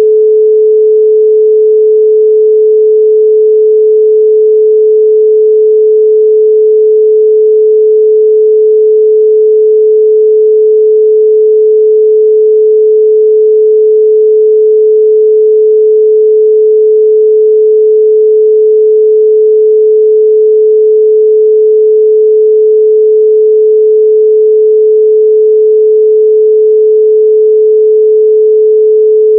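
A 432 Hz pure sine tone, held steady and loud without change.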